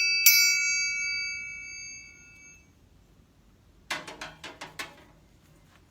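A metal triangle struck once, about a quarter second in, ringing with bright high tones that fade away over the next two and a half seconds. About four seconds in comes a quick run of several sharp clicks and knocks.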